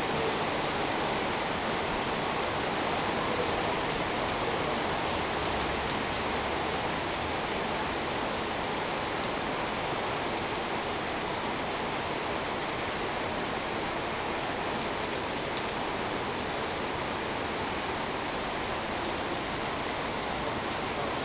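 Heavy thunderstorm downpour falling steadily on the street and parked cars: an even, unbroken hiss of rain.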